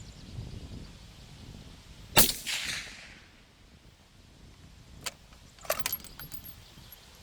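A single suppressed rifle shot from a custom 25 GT bolt rifle fitted with a Silencer Co Omega 300 suppressor, about two seconds in: a sharp crack with a short ringing tail. A few sharp clicks follow a few seconds later.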